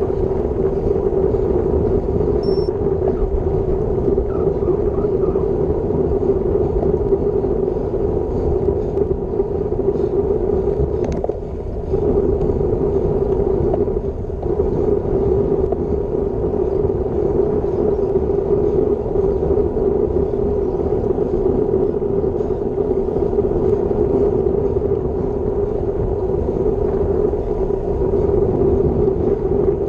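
Steady wind and road noise on an action camera's microphone from a road bike riding at about 30 km/h, with a brief dip twice near the middle.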